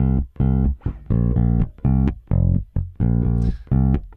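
Recorded electric bass guitar line playing short, detached notes with sharp starts, heard through a heavily set downward compressor. The attack time is raised, so the first transient of each note comes through and the beginnings of the notes sound more pronounced.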